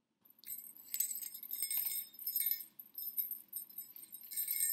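Small metal bells on a Christmas stocking's cuff jingling unevenly as the stocking is handled. The jingling starts about half a second in.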